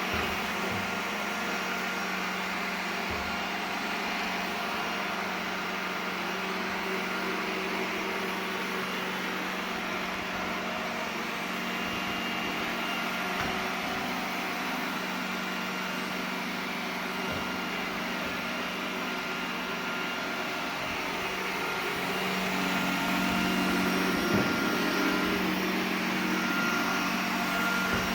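iRobot Roomba 980 robot vacuum running, a steady motor and suction hum. It grows louder about three-quarters of the way through.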